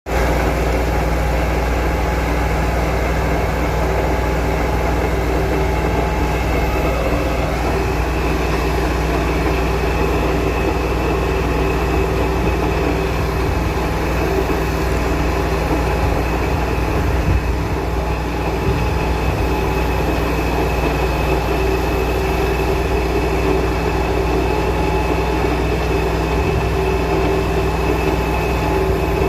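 Pile-driving machinery running: a loud, steady mechanical drone with a constant hum and a heavy low rumble, without distinct separate hammer blows.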